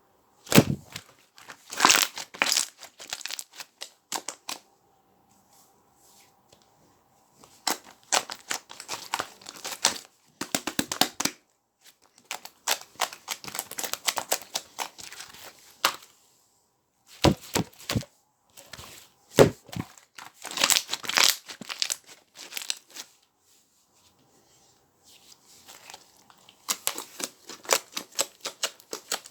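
Rapid crackling and popping of small air bubbles being squeezed, in bursts of several seconds with short pauses between them.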